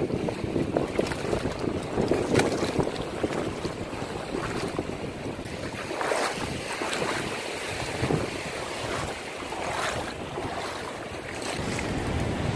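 Shallow sea water washing and lapping around rocks on a reef flat, with wind on the phone's microphone and short, sharp crackles here and there.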